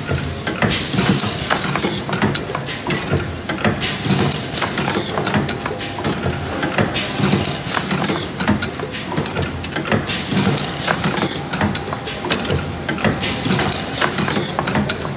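LED bulb automatic glue-dispensing machine running through its cycle: steady mechanical clicking and clattering from its rotary table and actuators, with a short high hiss about every three seconds.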